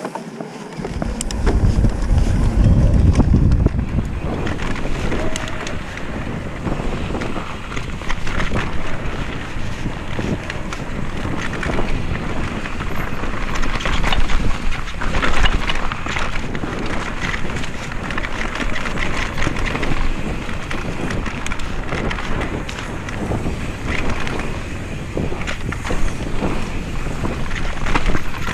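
Wind buffeting the camera's microphone as a Specialized Kenevo mountain bike descends a dirt trail, with the tyres running over dirt and stones and the bike rattling and clattering over bumps. The wind rumble is heaviest in the first few seconds.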